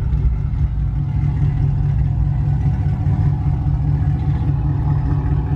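Lifted Chevrolet pickup truck's engine idling steadily, a low, even running sound with no revving.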